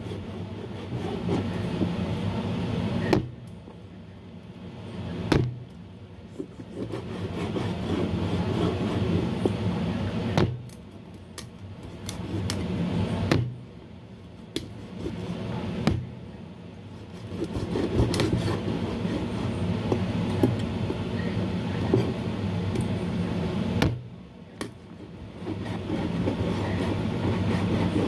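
Meat cleaver chopping raw chicken on a cutting board: scattered single sharp chops, several seconds apart. A steady background hum runs under them and cuts out and returns a few times.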